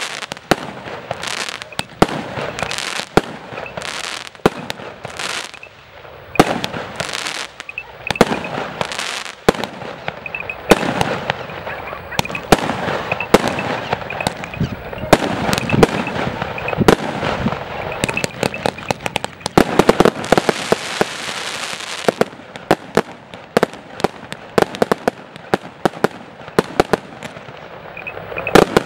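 A 53-shot firework cake firing: a long run of sharp shots and bursts, one to several a second, thickest around two-thirds of the way through.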